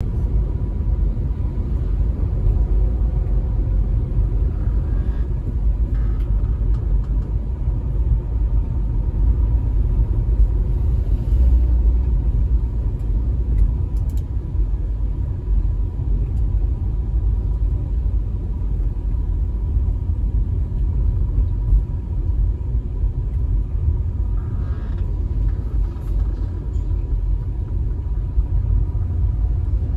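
Steady low rumble of a car driving along a road: tyre and engine noise.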